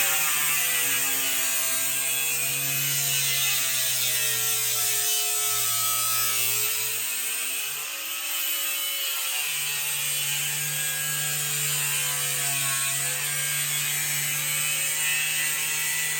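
Power saw cutting through a metal-skinned, foam-filled door, a steady run whose pitch sags and recovers as the blade loads up, with a brief easing about halfway through.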